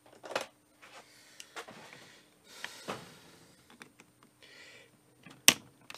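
Hand tools clinking and rattling on a workbench as they are picked through, with a few short scrapes and one sharp click about five and a half seconds in.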